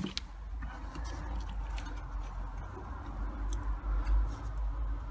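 Scattered light clicks and handling noise over a steady low rumble.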